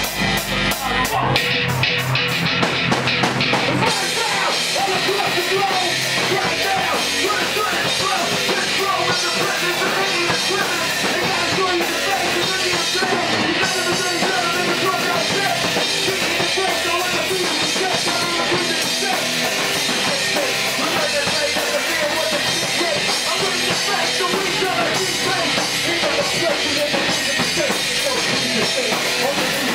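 Live rock band playing: a drum kit with rapid cymbal hits over the first few seconds, then drums and bass guitar playing on together steadily.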